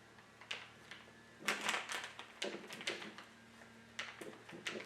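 Scattered light knocks and clicks of workbench vise parts being handled and set down, several in quick succession about one and a half seconds in and again near the end.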